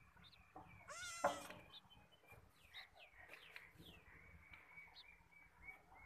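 Beetal goat kid bleating once, a wavering call about a second in, followed by faint high chirping.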